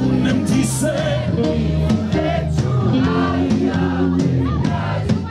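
Live band playing a Balkan folk-pop song with a steady drum beat, voices of the crowd singing along.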